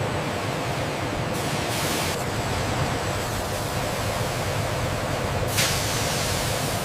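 Steady machinery noise, with a hiss of air or steam about a second and a half in and a longer one near the end.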